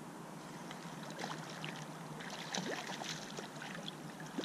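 A hooked walleye splashing and sloshing at the surface as it is drawn in to the bank, a scatter of small, irregular splashes over a steady wash of water.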